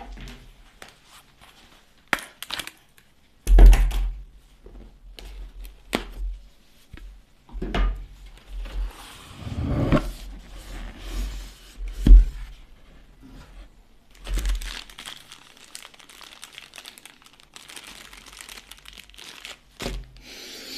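Cardboard microphone box being unpacked by hand: the printed sleeve slid off and the lid lifted, with rustling and scraping of card and paper and several sharp knocks, the loudest a few seconds in and again about twelve seconds in.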